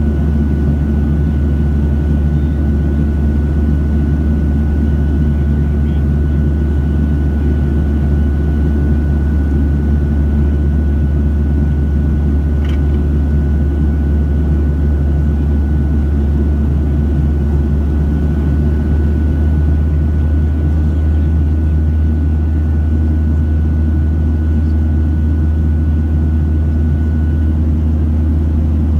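Steady in-cabin drone of a Boeing 737-700 climbing out after takeoff, heard from a seat over the wing: its CFM56-7B turbofan engines and airflow make a deep, even rumble with a thin high steady whine that stops near the end.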